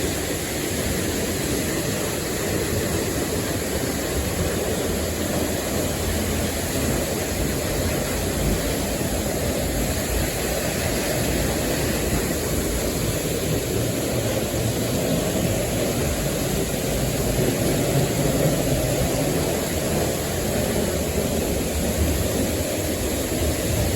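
Large waterfall pouring, a steady, even rush of falling water and spray heard from close up beside and behind the falls.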